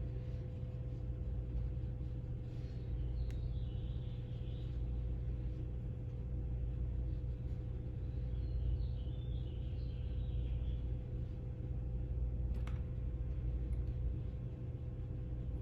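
Steady low background hum with a faint steady tone, two light clicks a few seconds in and near the end, and faint high chirping in places.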